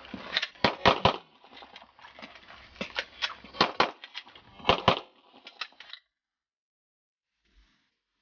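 Handgun shots fired at close range: a quick string of about a dozen, many in rapid pairs, then the sound cuts off to silence about six seconds in.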